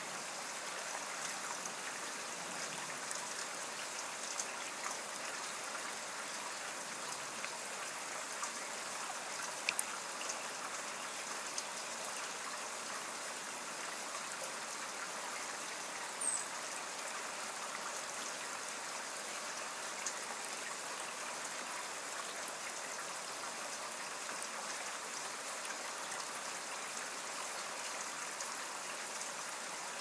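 Steady rain falling, an even hiss, with a few sharp drip clicks and one short high chirp about halfway through.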